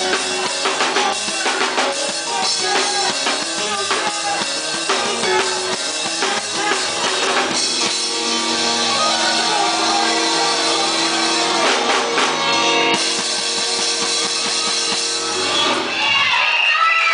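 Drum kit played live with a band: dense drum hits and cymbals for the first half, then held chords over lighter drumming from about halfway. Near the end the drums thin out and voices come in.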